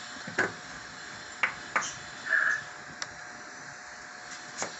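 Kitchen knife slicing a raw potato, the blade knocking on the wooden cutting board as each cut goes through: about five sharp knocks at an uneven pace. A short tone sounds about halfway through.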